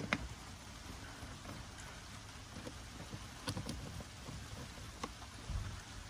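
A screwdriver backing screws out of a plastic trim cover under a Citroen Relay van's dashboard: a few faint clicks and scrapes, with a soft knock near the end, over a steady low hiss.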